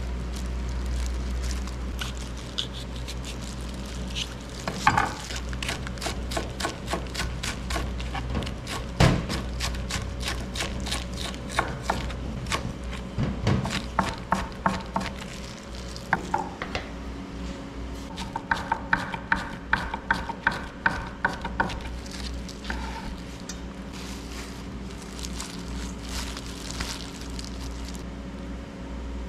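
Kitchen knife chopping green vegetables on a wooden cutting board: many short, quick strokes, thickest through the middle, over a steady low hum. Quieter handling of food in a stainless steel bowl at the start and near the end.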